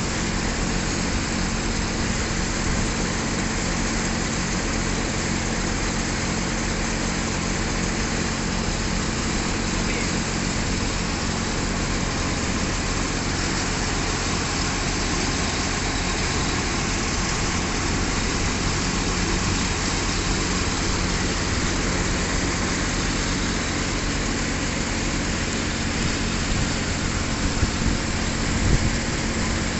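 Diesel engine of a crawler piling rig running steadily at idle, with a few small knocks near the end.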